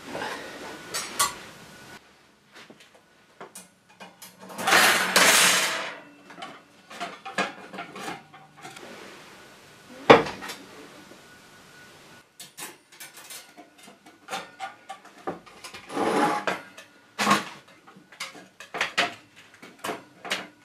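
Metal clinks, knocks and rattles of a steel wire oven shelf being worked in a bench vice: scattered sharp clicks of the rods, a longer loud scraping rattle about five seconds in, one sharp knock about ten seconds in, and a run of clinks near the end as the rack is handled.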